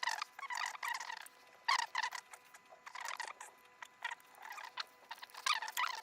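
Irregular bursts of scratchy clicking and rasping handling noise from hands and tools working on the electrical fittings, with a faint steady whine underneath.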